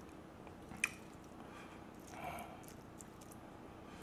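Quiet handling sounds of metal tongs picking up sauced roast chicken pieces: one sharp click of the tongs just under a second in, and a soft wet squish a little past two seconds.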